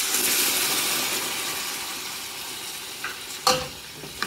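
Red chile sauce poured into a hot pot of oil-fried pork rib pieces, sizzling loudly at first and then dying away over a few seconds. Near the end a spatula knocks against the metal pot a couple of times as the stirring starts.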